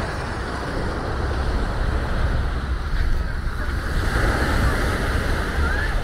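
Surf washing onto a sandy beach in a steady hiss, growing a little louder about four seconds in, with wind rumbling on the microphone.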